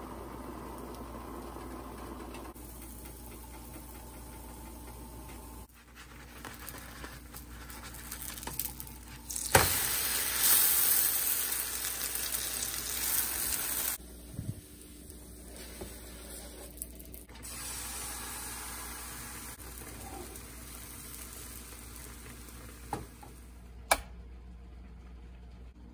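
Kitchen food-preparation sounds in several short cut-together clips. The loudest part, about ten seconds in, is a few seconds of loud hissing, and there are a couple of sharp clicks near the end.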